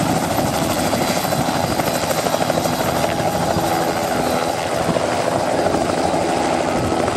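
Bell 206 JetRanger helicopter lifting off into a hover and climbing away: the rapid chop of its two-bladed main rotor over a steady turbine whine.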